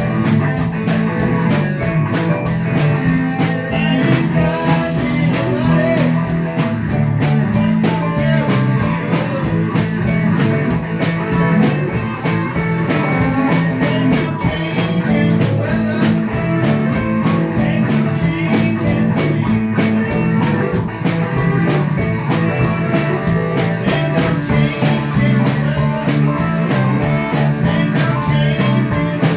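A rock band playing an up-tempo blues-rock tune on electric guitars, bass guitar, drums and keyboard, with a steady beat and a repeating bass line.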